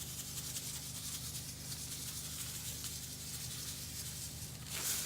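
Salt being poured into a bin of vinegar: a steady grainy hiss of falling grains, louder near the end.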